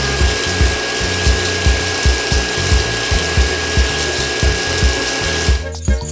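Small electric motors of toy mini water pumps running, a steady high whine over a buzzing rattle, which cuts off about five and a half seconds in. A regular low beat of music runs underneath, and after the cut-off music with jingling takes over.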